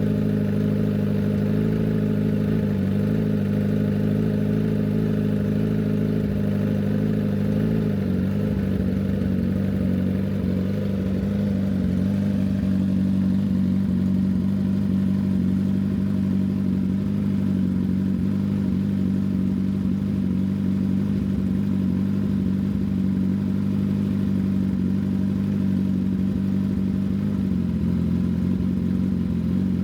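Kawasaki ZX-10R inline-four idling steadily through an SC Project CRT exhaust on a controlled cold start, run to check that the new exhaust is sealed. The idle holds an even pitch, with a brief dip near the end.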